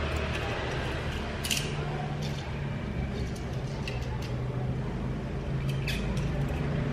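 A few light clicks of a small die-cast metal toy jeep being handled and set down on a tiled floor, over a steady low background hum.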